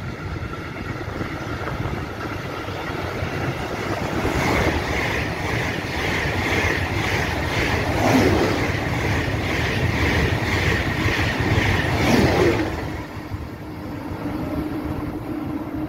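ICE 2 (Class 402) high-speed train passing through the station without stopping. Its rumble builds, then its wheels clatter rhythmically on the rails for about eight seconds and cut off sharply as the end of the train goes by, leaving a steady low hum.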